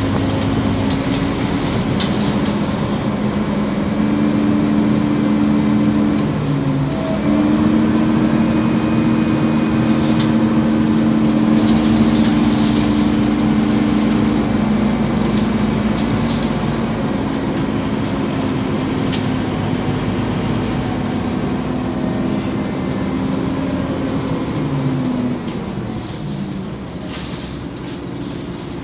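Scania OmniCity city bus heard from inside the passenger cabin while driving: a steady engine and driveline drone whose pitch steps up and down as the bus changes speed. It grows louder about seven seconds in and eases off near the end, with a few sharp rattles from the cabin.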